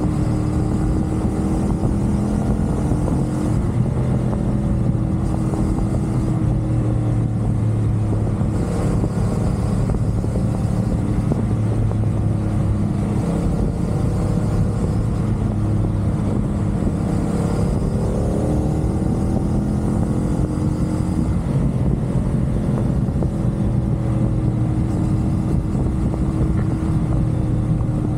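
CFMoto 450SR sport bike's parallel-twin engine running steadily at expressway cruising speed, its pitch easing down and back up a little a few times, under a constant rush of wind and road noise.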